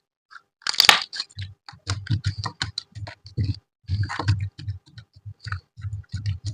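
Slime being squished and poked by hand: a rapid, uneven run of sticky clicks and pops, starting with a louder squelch about a second in.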